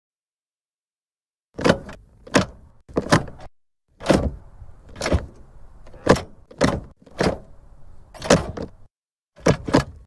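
Automatic gear selector of a 2002 Mercury Sable being moved through its positions: about a dozen sharp clicks and clunks, roughly one a second, some in quick pairs. They start about a second and a half in.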